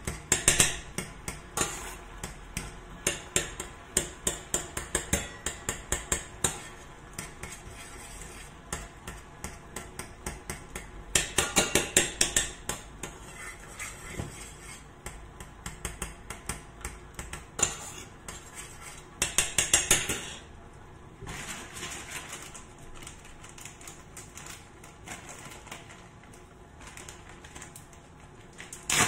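Metal spoon stirring a cream-and-cheese sauce in a stainless steel saucepan, clinking and scraping against the pot several times a second. The strokes come in bursts, busiest near the start, about a third of the way in and about two-thirds in, then ease to lighter scraping.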